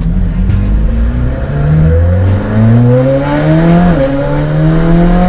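Twin-turbo V8 of a Novitec-tuned McLaren Senna with the RACE GTR exhaust, accelerating hard. The engine note climbs steadily in pitch, drops suddenly at an upshift about four seconds in, and climbs again.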